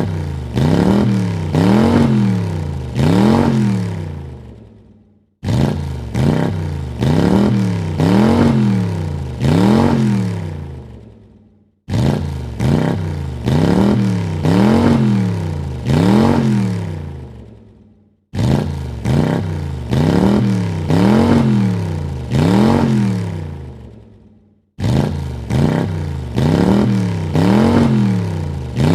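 Car engine revved in four quick blips, the pitch rising and falling each time, then dying away. The same short recording repeats about every six and a half seconds.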